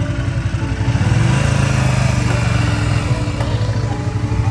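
Motorcycle engine running under load, its note getting louder and a little higher about a second in.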